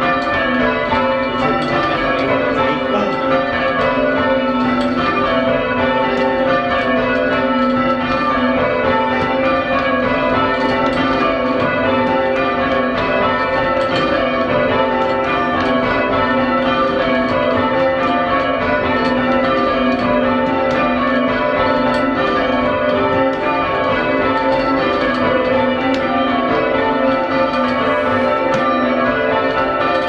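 Change ringing on a ring of five church bells, tenor in A, heard from the ringing chamber beneath them: the bells strike one after another in a steady, unbroken rhythm as the changes are rung.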